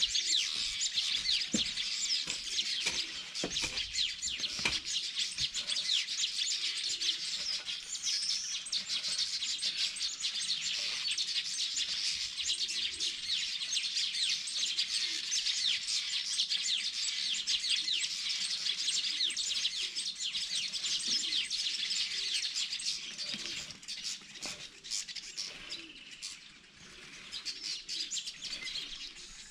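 A dense chorus of many small birds chirping and twittering without pause, with a few dull knocks in the first few seconds. The chorus thins out a little near the end.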